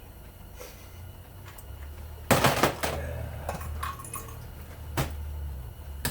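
Hard knocks and clicks of a stripped fan motor and its metal parts being handled on a workbench, a quick cluster a little over two seconds in and single knocks later, over a low steady hum.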